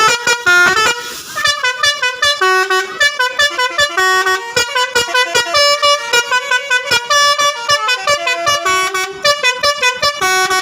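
Bus 'telolet' basuri horn, a multi-tone musical air horn, playing a fast tune of short notes that jump from pitch to pitch, and stopping suddenly at the end.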